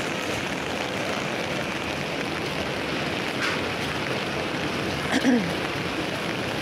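Heavy rain falling, a steady hiss. About five seconds in there is one short pitched sound that falls in pitch.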